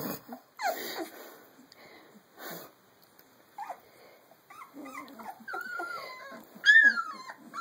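Young puppies play-fighting: snuffling and breathing, then a series of small squeaky whines and yelps, the loudest a high falling cry near the end.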